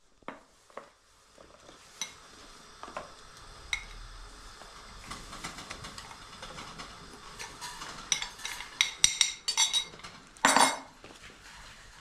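A metal spoon clinks and scrapes against a glass bowl and a metal sieve as dry baking ingredients are scooped out and sifted. Scattered clinks give way to a quick run of clinks, then a short, louder rattle near the end.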